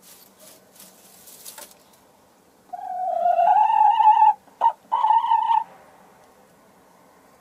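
Light Sussex hen on the nest while laying an egg, giving a long drawn-out call that rises slightly in pitch, broken by a short note, starting about three seconds in. Before it, faint rustling of straw in the nest box.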